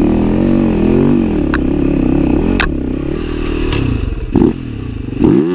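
Enduro dirt bike engine revving up and down as the throttle is blipped and opened, heard from on the bike. Several sharp knocks and clatter from the bike come through, with a couple of heavier thumps near the end.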